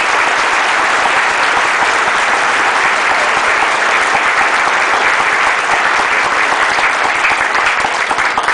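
Audience applauding steadily: many people clapping at once in a dense, even wash of claps.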